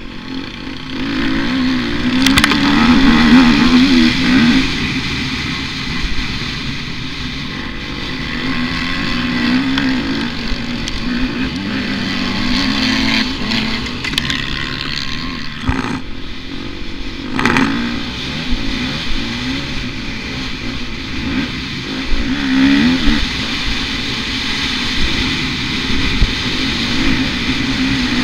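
Motocross dirt bike engine heard from a helmet-mounted camera, revs repeatedly rising and falling as it is ridden hard over the track. Two sharp knocks come a couple of seconds apart just past the middle.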